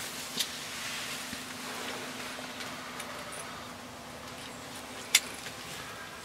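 Quiet outdoor ambience with a faint steady hum, a soft click about half a second in and a sharp, loud click about five seconds in.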